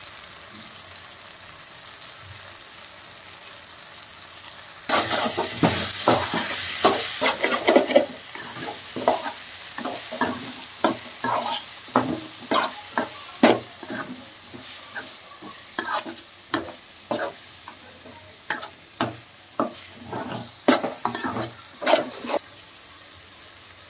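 Onion-tomato masala with chilli powder, coriander powder and salt sizzling in a non-stick frying pan, quiet for the first five seconds or so. Then a metal spatula stirs and scrapes it around the pan in quick repeated strokes until near the end.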